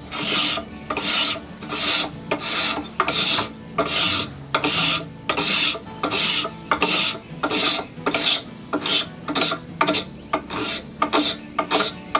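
No. 80 cabinet scraper pushed in repeated strokes along a wooden cane shaft, each stroke a short dry scrape as the blade lifts fine shavings. The strokes come a little more than once a second, quickening to two or three a second near the end.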